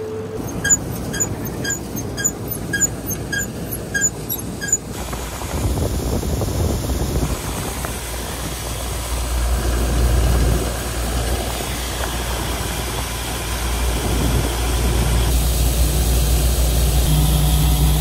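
An old Allis-Chalmers combine harvester running, with a regular light clicking about twice a second during the first five seconds. The machine then runs on with a fuller, heavier noise that swells around the middle and again near the end.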